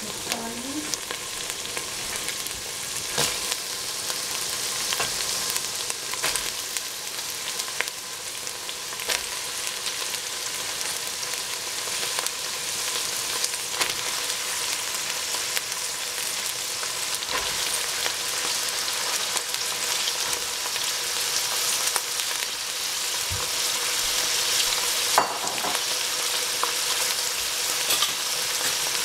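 Green beans sizzling as they fry with ground meat in a stainless steel pot. There is a steady hiss that grows slightly louder, and a few sharp clicks as the beans are stirred against the pot.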